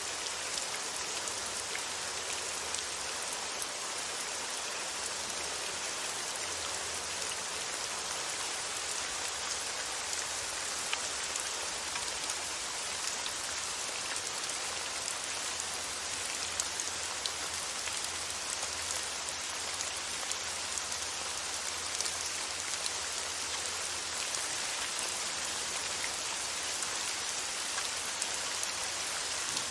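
Steady rain falling: an even hiss, brightest in the highs, flecked with many small drop ticks.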